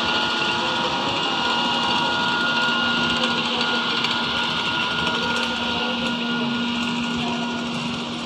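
Electric walk-behind floor scrubber running: a steady motor whine and hum with a few constant tones over an even rush of suction, easing slightly near the end.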